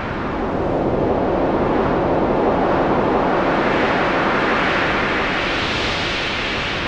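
A steady rush of wind and rain noise. It fades in over the first second and turns brighter and hissier about five to six seconds in.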